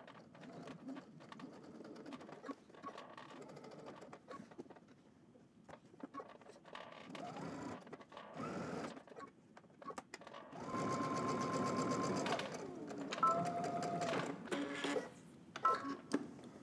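Electric sewing machine topstitching through layers of denim, running in short start-stop spurts: slow, quiet stitching at first, then a faster run with a steady motor whine about ten seconds in and another at a lower pitch a couple of seconds later.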